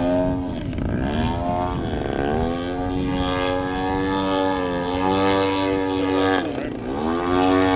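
Radio-controlled aerobatic model airplane's engine and propeller flying overhead, the engine note dipping and swelling several times with throttle and passes, holding steady for a few seconds in the middle.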